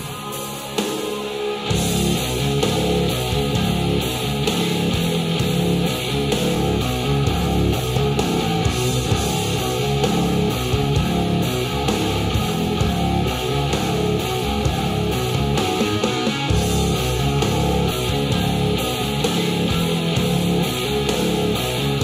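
Rock music with distorted electric guitar, drums and heavy bass, played through small Audioengine HD3 and HD4 powered bookshelf speakers in turn and picked up by room microphones. The full band with its heavy bass comes in about two seconds in.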